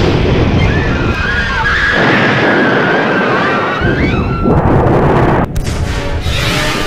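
Film destruction sound effects for a collapsing tower: a loud, dense rumble with wavering, gliding high whines over it, broken by a sudden cut about five and a half seconds in.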